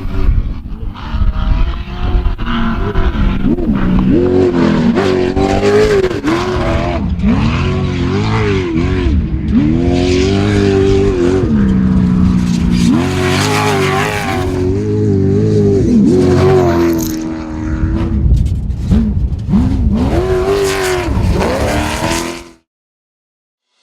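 Off-road race vehicle's engine at full racing throttle, its pitch climbing and dropping again and again as it revs up and eases off, over a steady low rumble. It cuts off suddenly about a second before the end.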